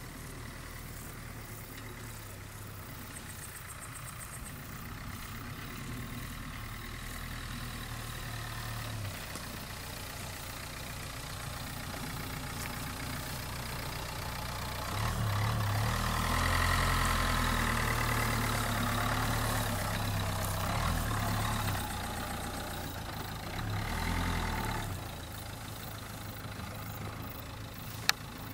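Dacia Duster driving slowly across a grassy field toward the listener, its engine getting louder as it comes closer and loudest a little past halfway. Near the end it drops back to a steady idle as the car stops, and there is one sharp click just before the end.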